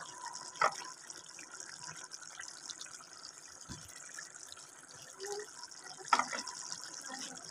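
Steady hiss of a pot of lobia dal and potatoes cooking on the stove, with two short knocks, a faint one about half a second in and a louder one about six seconds in.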